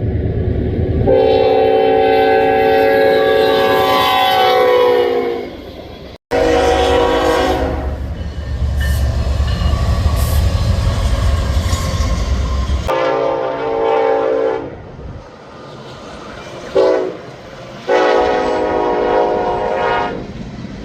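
Locomotive horns sounding multi-note chords in a string of blasts: a long one, a short one, then a steady low rumble of a passing train. After that come a second long blast, a brief toot and a last long blast near the end. The sound changes abruptly twice where clips are cut together.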